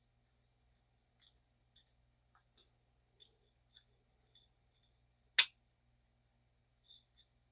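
Faint scattered clicks and ticks of a vintage Zebco fishing reel's small metal parts being handled and worked at, with one sharp, much louder click about five and a half seconds in.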